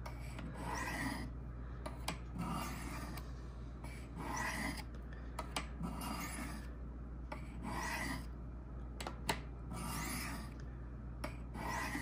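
Pocketknife blade drawn heel to tip along the fine white ceramic rods of a Spyderco Sharpmaker: a light scraping stroke about every second and a half, alternating sides, with a few faint clicks. This is the final honing stage on the fine rods.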